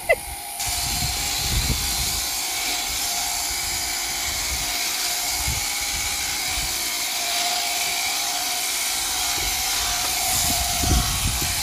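Sheep-shearing handpiece on a hanging drive running steadily as it clips the fleece off a ewe, a constant whirring hum that starts about half a second in.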